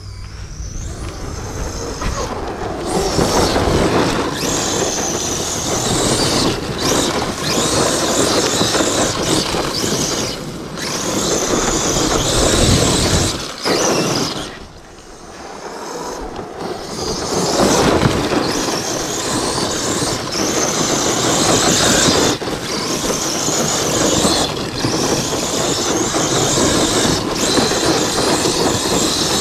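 Electric 1/5-scale Outcast RC truck run hard on loose dirt: its motor whines up in pitch again and again, with short drops in between as the throttle is let off, over the rush of tyres tearing through the dirt.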